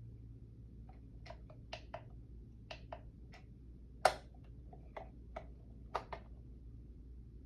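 Irregular small plastic clicks, about fifteen in loose clusters, with one sharper and louder click about four seconds in: buttons being pressed and the case of a talking alarm clock being handled while it is set. A faint low hum runs underneath.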